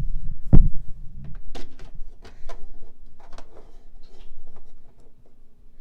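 Miniature plastic toy items handled and set into a toy fridge: a string of light clicks and taps, with one loud knock about half a second in.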